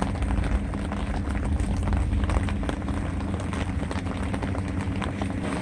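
Steady rain falling: a dense patter of small drop ticks over a low, steady rumble.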